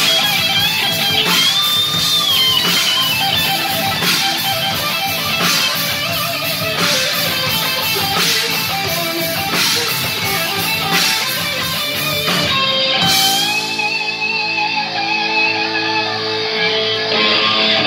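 Heavy metal band playing live: distorted electric guitars over drums with crashing cymbals. About thirteen seconds in, the drumming stops and held notes ring on.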